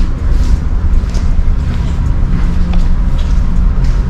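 Steady low rumble of the ferry Sunflower Satsuma's engines and hull heard aboard the ship, with faint clicks over it.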